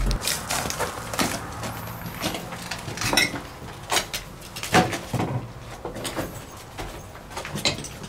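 Footsteps and scuffs on a gritty, debris-strewn concrete floor, irregular, with a few louder steps and knocks.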